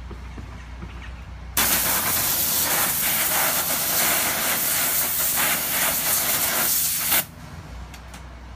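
3500 PSI pressure washer jet blasting a block of wood: a loud, even hiss that starts suddenly about a second and a half in and cuts off after about five and a half seconds, the jet gouging chunks out of the wood.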